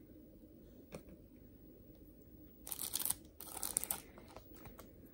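Plastic freezer bag crinkling in two short bursts near the middle, with a faint click about a second in.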